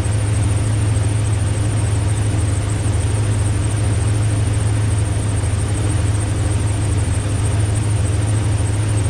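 Suburban's engine idling steadily, a constant low hum with no change in speed.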